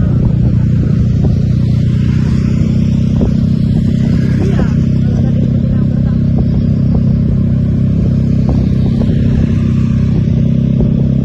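Vehicle engine running loud and steady at a constant low pitch, with no revving.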